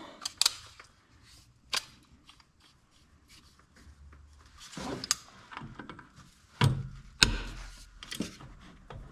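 Scattered metallic clicks and clanks of hand tools and shock-mount hardware, with two heavier thumps about two-thirds of the way through.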